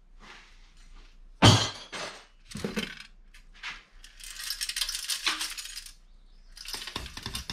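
Sheet-steel chassis of a stripped POS touchscreen terminal being handled on a metal-strewn workbench: a sharp metallic clank about a second and a half in, a couple of lighter knocks, then about two seconds of rattling metal clatter and more clatter near the end.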